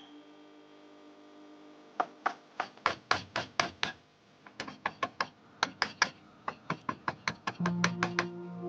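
A hammer tapping repeatedly, about three to four sharp blows a second in two runs with a short pause between, over faint background music that gets louder near the end.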